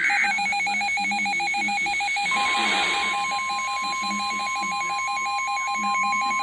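Emergency alert signal: a rapid electronic warble of short beeps alternating between a low and a high pitch. About two seconds in, the steady single-pitch NOAA Weather Radio warning alarm tone joins it, ahead of a new warning message.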